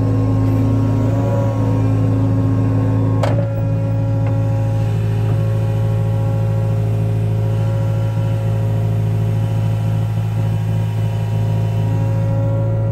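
Hydraulic excavator's diesel engine running steadily while the boom lowers a suspended concrete block, with a single sharp click a little over three seconds in.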